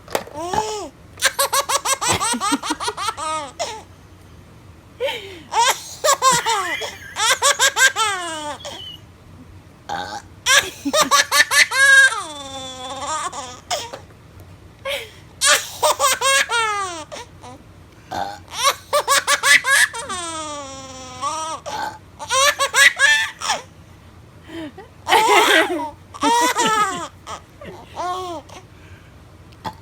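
A woman burping and a six-month-old baby laughing in repeated bouts, each a few seconds long with short pauses between, some ending in long squealing glides.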